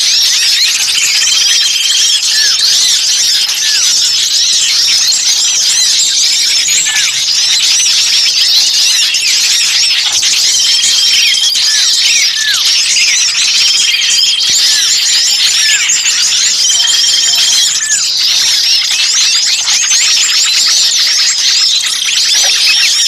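Bird-luring recording of many small songbirds calling at once: a dense, loud chatter of rapid high chirps, with a short level whistle that recurs every few seconds and quick falling notes beneath it.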